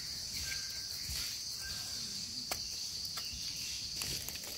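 Steady high-pitched drone of a forest insect chorus, with a few faint clicks.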